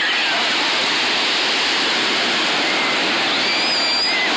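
Steady rushing wash of ocean surf breaking on the shore, with faint high-pitched voices near the end.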